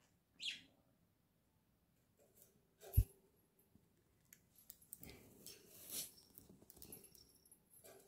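A budgerigar gives a short, high chirp that falls in pitch, then there is a sharp knock, the loudest sound, about three seconds in. Scratchy rustling and fluttering follow as a budgie moves about the cage.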